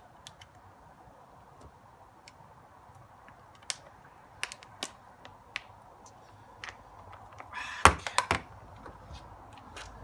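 Aluminium beer cans clicking and knocking as they are handled and emptied into boots, with a short burst of loud crackling about eight seconds in as an empty can is crushed.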